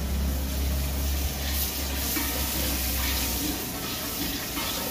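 Ladlefuls of hot meatball stock poured into a large metal pot of steaming gravy, splashing and hissing, then the ladle stirring the liquid. A low steady hum sits underneath and fades out about three and a half seconds in.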